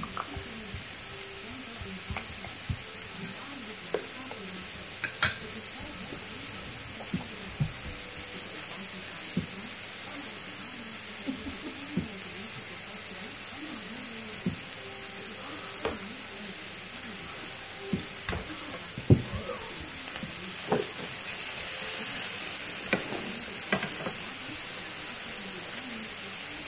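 Steady background hiss with small, irregular clicks and soft knocks, about one every second or two; the loudest knock comes about two-thirds of the way through.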